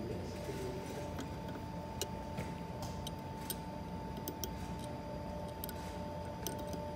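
Scattered light, irregular clicks of a metal dental explorer probe and mouth mirror touching the plastic teeth of a typodont, over a steady hum.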